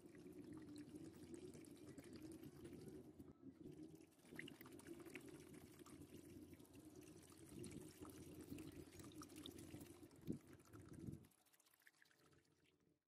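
Faint steady stream of vinegar poured from a plastic bottle into a plastic gutter trough holding a rusted sword blade, filling it to soak the rust. There is a brief louder splash near the end, and the pour stops about eleven seconds in.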